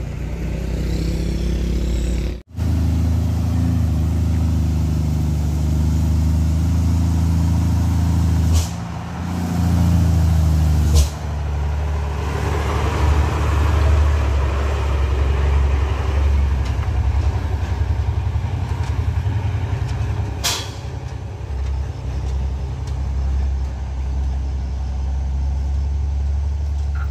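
Heavy diesel truck engine running close by: a deep, steady drone that cuts out for a moment about two seconds in. A few brief sharp sounds come through near nine, eleven and twenty seconds.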